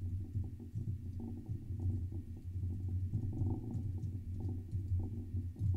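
Computer keyboard typing: a fast, continuous run of muffled keystrokes.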